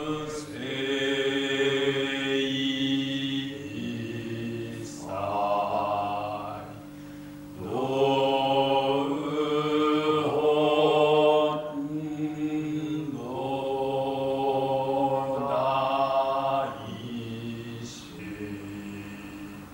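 Jōdo Shinshū Buddhist liturgical chanting in Japanese by priests' voices, sung on long, held notes in phrases of a few seconds with short breaks between them.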